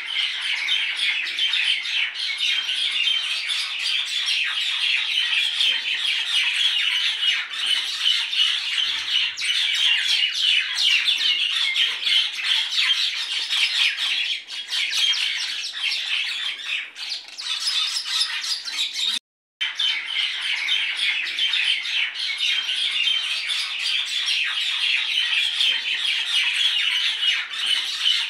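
Many birds chattering and squawking at once in a dense, continuous din, with one brief dropout about two-thirds of the way through.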